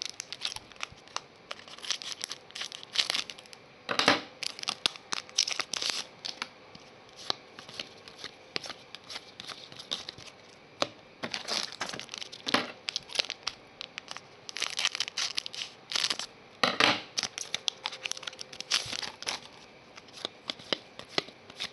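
Trading-card pack wrapper torn open and crinkled by hand, and a stack of cards slid and shuffled one over another: a run of short crackling rustles with a few louder crackles.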